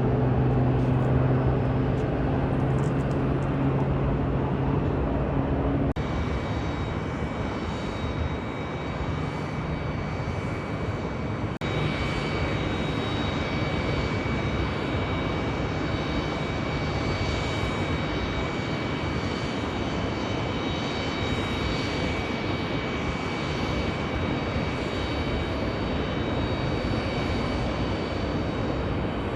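Jet airliner engines running with a steady roar and a high whine. The sound shifts abruptly about six seconds in and again near twelve seconds, after which the high whine is strongest.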